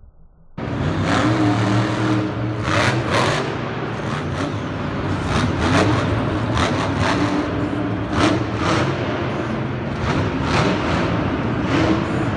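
A full-size monster truck's supercharged V8 engine running and revving repeatedly as the truck drives across a dirt arena floor, cutting in suddenly about half a second in.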